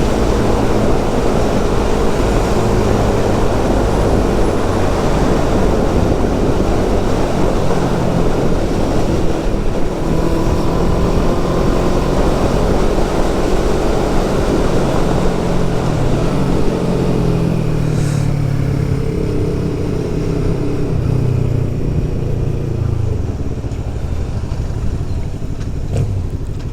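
Motorcycle engine running under way with heavy wind noise, the engine pitch rising and falling with the throttle through the middle stretch.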